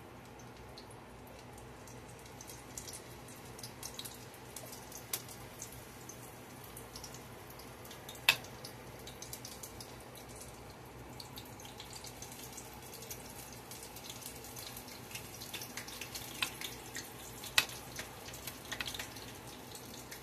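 Onion rings deep-frying in a pot of oil, a faint, steady crackle with many small pops. A fork clicks sharply against the batter bowl twice, once about eight seconds in and again near the end.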